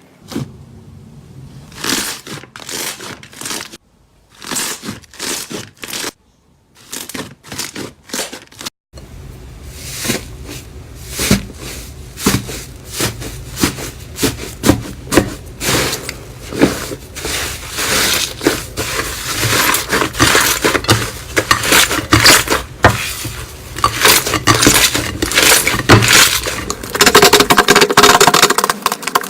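Slime being squeezed and poked by hand, giving a dense run of small pops, clicks and crackles.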